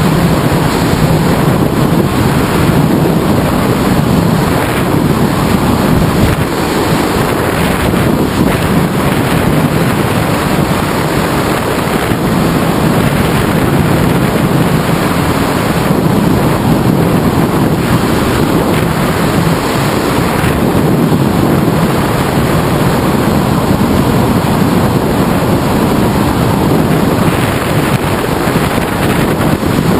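Loud, steady wind rushing over a wing-mounted GoPro's microphone on a hang glider in flight.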